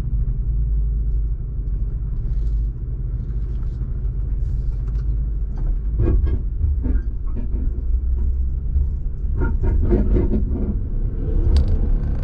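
Jeep Wrangler driving on an off-road trail: a steady low engine and drivetrain rumble. Clusters of knocks and rattles come about six seconds in and again near the end.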